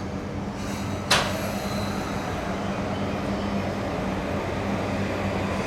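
Electric commuter train standing at the platform with a steady low electrical hum, and one short, sharp burst of noise about a second in.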